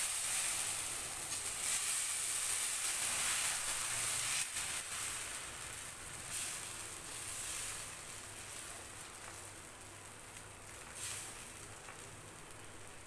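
Bread-dosa batter sizzling on a hot griddle (tawa) as it is poured and spread, a steady hiss that slowly fades as the batter sets.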